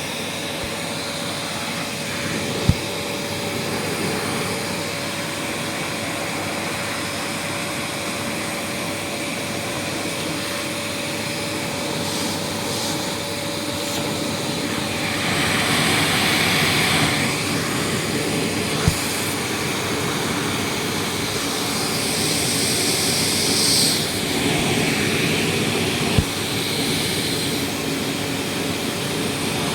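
Vacuum cleaner running steadily with a constant motor whine as it sucks dust off a heat pump's clogged air filters, turning hissier twice for a couple of seconds. Three short sharp knocks stand out, once near the start and twice later on.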